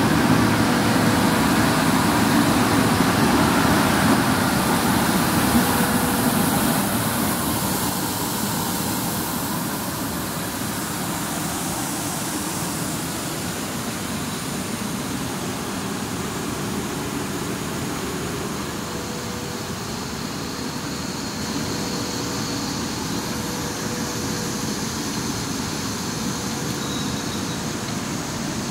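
Flexographic printing press running: a steady mechanical whir of motors and turning rollers with a faint steady hum-tone. It is louder for the first seven seconds or so, then settles a little lower.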